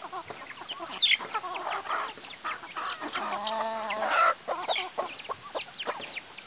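A flock of hens and a rooster clucking as they feed, with many short, quick calls and one longer drawn-out call about three seconds in.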